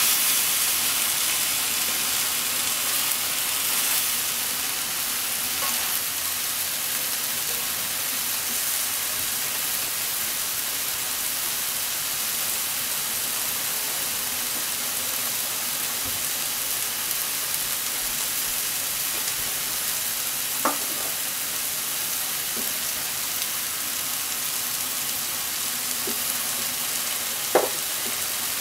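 Sliced shiitake, enoki and Japanese leek sizzling steadily in oil in a frying pan, with two brief sharp clicks in the second half.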